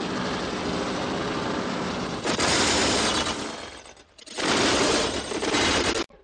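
Electronically distorted steam-locomotive chuffing sound effect, a harsh, rapid, dense rattle. It swells louder about two seconds in, fades out near four seconds, surges again and cuts off abruptly just before the end.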